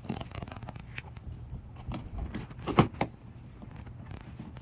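Hands working a wiring harness and plastic clips inside a van door: scattered clicks and light rattles, with two sharp knocks close together a little past halfway.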